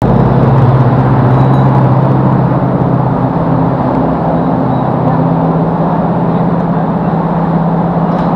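A motor vehicle engine running with a steady low hum over road noise; the hum steps up slightly in pitch about halfway through.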